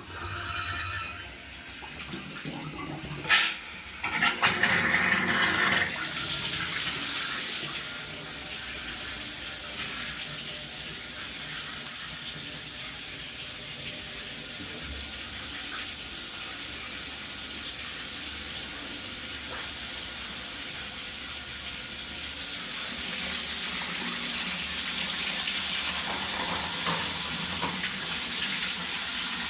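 Water running through a newly plumbed shower valve as it is tested, a steady rush of water. A sharp knock comes about three seconds in and a spluttering burst just after, before the flow settles.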